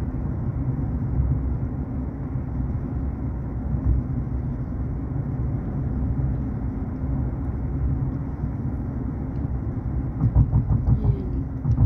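Steady low road and engine rumble heard inside a car's cabin while it cruises along a highway, growing briefly louder and uneven near the end.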